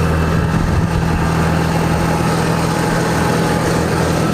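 Vehicle engine idling with a steady, even hum.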